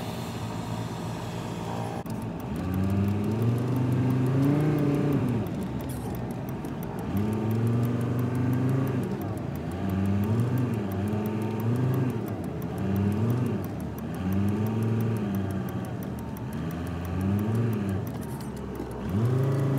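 A vehicle's engine heard from inside the cab. It runs steadily, then about two seconds in it pulls away and accelerates, its pitch rising and dropping back again and again every two to three seconds, over road noise.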